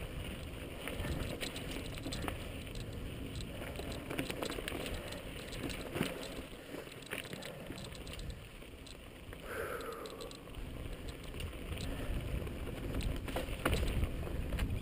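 Mountain bike riding over rocky dirt singletrack, heard from a helmet camera: tyre noise on dirt and stone with frequent clicks and rattles from the bike over rocks, and wind rumble on the microphone. One brief falling squeal near the middle.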